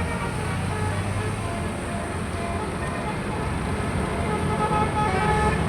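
Passing tour buses: steady engine rumble and road noise, with a faint tune of short notes over it.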